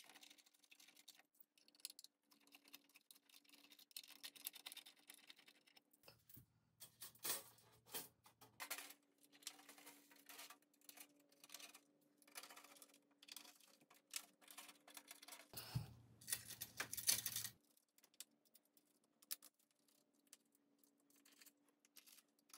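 Near silence with faint, scattered clicks and taps of hand tools and fasteners as body panels are fitted to a machine frame, and a few slightly louder knocks, over a faint steady hum.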